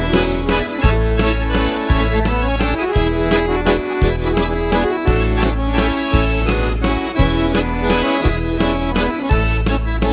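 Instrumental break of a sertanejo song: an accordion plays the melody over a steady beat of bass notes and percussion, with no singing.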